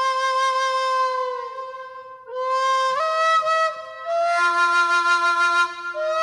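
Background music: a flute playing a slow melody of long held notes. A long note slides down and fades about two seconds in, then the tune picks up again with notes stepping upward, and a lower held note joins underneath partway through.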